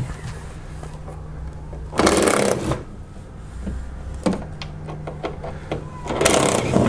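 Cordless impact tool with an 8 mm socket running in two short bursts, about two seconds in and again near the end, spinning out the bolts of a car's underbody splash shield, with a few light clicks between and a steady low hum underneath.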